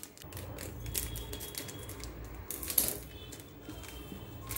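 Scattered light clicks and taps of hands handling a spice packet and steel kitchenware, with one sharper click just under three seconds in.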